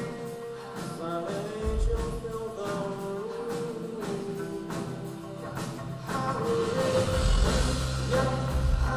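Background music: a song with a sung melody over a steady beat, the bass getting heavier about seven seconds in.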